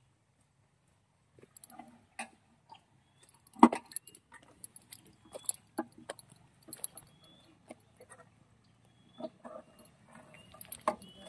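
Scattered metallic clinks and knocks from parts and tools being handled at a soil-sampling drill rig, the loudest a sharp knock about three and a half seconds in.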